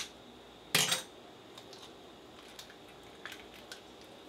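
Handling sounds from cleaning a whole porgy at a stainless-steel sink: a sharp click at the start, a short, loud, rough noise about a second in, then a few faint clicks as the opened fish is worked by hand.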